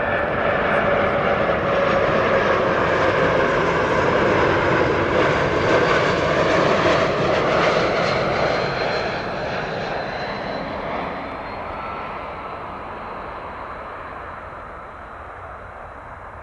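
Swiss Airbus A220's Pratt & Whitney PW1500G geared turbofans on final approach, flying past: the jet's whine and rushing noise build to a peak about halfway through, then the tones slowly drop in pitch and the sound fades as the airliner moves away toward touchdown.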